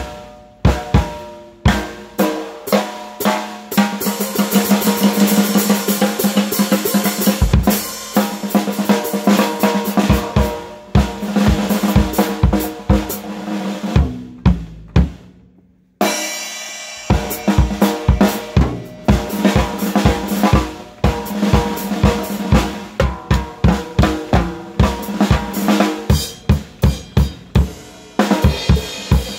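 Acoustic drum kit played solo: fast snare rolls and fills over the kick drum, with tom and cymbal hits. About halfway through the playing dies away to a brief stop, then starts again with evenly spaced hits.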